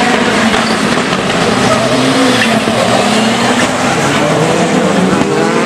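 A pack of rallycross cars racing together, several engines revving and rising and falling in pitch over one another, with tyres squealing as they go into a corner.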